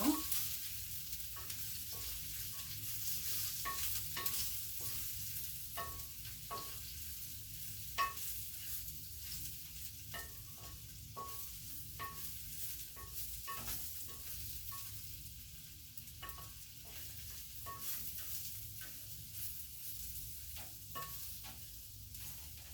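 Chopped green beans being stirred in a hot pan with a spatula after spice powder is added: the spatula scrapes and knocks against the pan at irregular intervals, some knocks ringing briefly, over a steady sizzle of frying.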